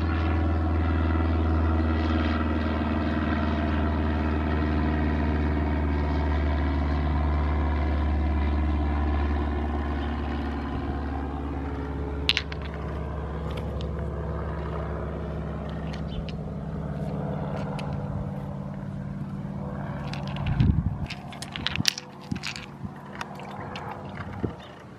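A steady engine drone that slowly fades away over the first half, followed by a few sharp clicks and knocks near the end.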